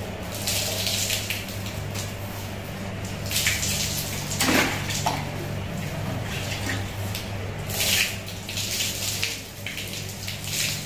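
Water poured repeatedly from a mug over a rat snake, splashing and pattering onto a concrete floor, with the mug dipped back into a plastic bucket of water between pours.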